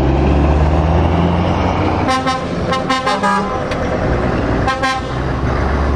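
Heavy lorry diesel engines running as trucks pull past in a convoy, with a truck horn tooted in a quick run of short blasts about two seconds in and twice more near the end.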